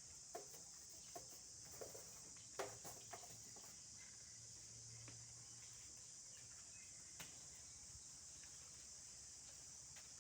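Steady, high-pitched insect chirring, like crickets, runs throughout. A few light clicks and knocks come in the first few seconds, and one more comes about seven seconds in.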